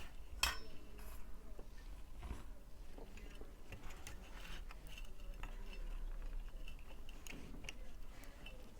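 Faint, scattered small clicks and light metallic taps of hand tools working on a TV power supply circuit board as its old capacitors are removed.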